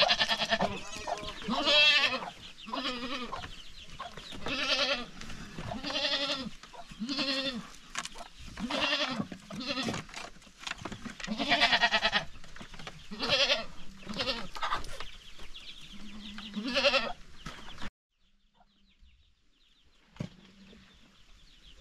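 Young goats bleating over and over, about a dozen high, wavering bleats in quick succession, which stop suddenly a few seconds before the end.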